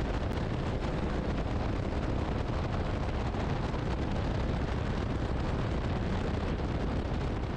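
Steady rushing noise of a helicopter heard from on board: engine, rotor and wind blending into an even, deep roar without pauses.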